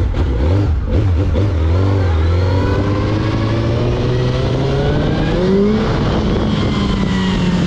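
Suzuki GSX-R1000 inline-four engine pulling under acceleration, its pitch climbing steadily for several seconds after a couple of brief blips, then dropping slightly and holding near the end. The freshly fitted clutch with stiffer springs is holding the power without slipping.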